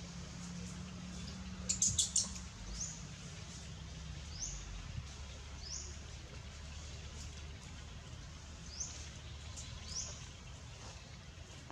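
A bird calling over and over in the forest: short, high chirps that sweep upward, one every second or two. A quick cluster of sharp clicks comes about two seconds in, over a low steady rumble.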